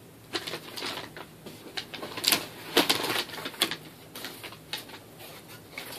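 A pair of sneakers being taken out of their box: irregular rustles, knocks and clicks of handling, the loudest a few knocks two to three seconds in.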